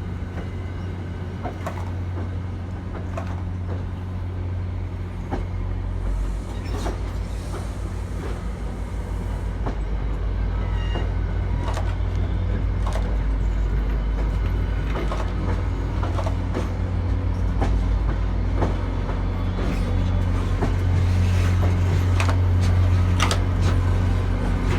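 NJ Transit passenger train rolling slowly out of the yard: a steady low diesel drone from its GP40PH-2B locomotive, with irregular clicks and clunks of the wheels over rail joints. The drone grows gradually louder toward the end.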